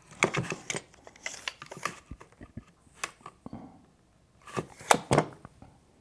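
Tape measure and pencil handled on a cedar board while a hole position is measured and marked: irregular clicks and rattles, loudest in a cluster just after the start and another near the end.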